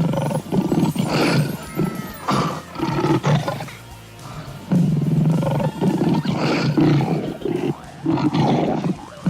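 Recorded big-cat roars and grunts, a run of separate loud calls with short pauses between them, over background music.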